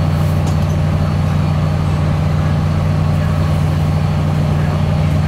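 Inside a CAF Class 3000 diesel multiple unit on the move: a steady, loud low drone, much of it from the carriage's air-conditioning unit, over the running noise of the train.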